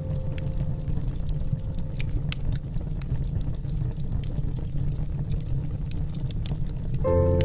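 Wood fire crackling, with sharp snaps scattered irregularly over a low steady rumble. Music comes back in near the end.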